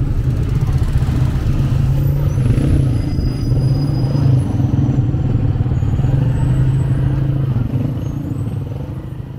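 Motorcycle engine running steadily, heard from on the bike, with surrounding street traffic; the sound fades out near the end.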